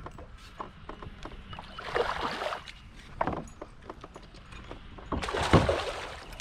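Water splashing against a boat twice, with small knocks and clicks in between.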